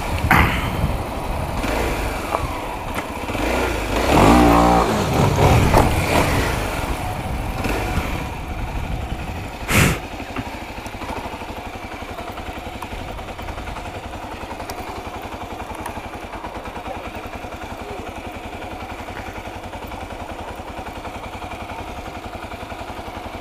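Motorcycle engine pulling hard, its pitch rising and falling as it revs about four seconds in, with wind rushing over the microphone; a single sharp knock near ten seconds in; then the engine settles to a steady low-rev beat.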